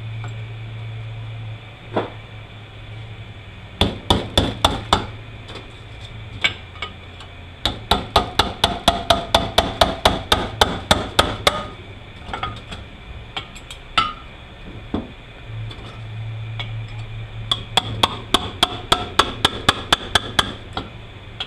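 Runs of rapid hammer blows on metal, about five a second, with a metallic ring, in three bursts separated by pauses: the oil pump being knocked loose from a Toyota U760E automatic transaxle case. A steady low hum runs underneath.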